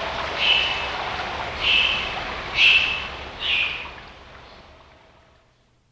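Recorded sound effect of a short, high bird call repeated about once a second over a steady rushing background, fading out near the end.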